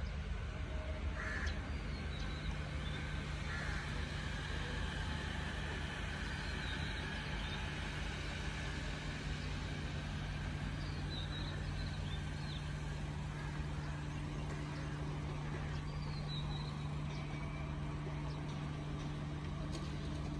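Small hatchback car engines running steadily at low speed, a constant low hum. Birds call briefly a few times over it.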